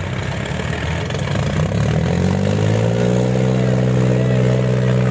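Tractor diesel engines working at full throttle under heavy load, pulling against each other in a tug-of-war. About two seconds in, one engine's note rises a little and then holds a steady, strong pitch.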